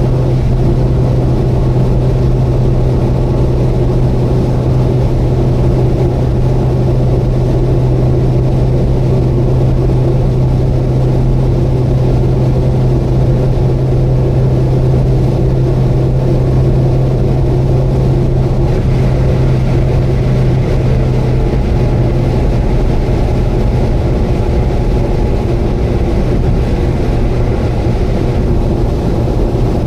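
Subaru Vivio kei car cruising at steady speed: a constant engine and road drone. A faint high whine joins in about two-thirds of the way through and holds for several seconds.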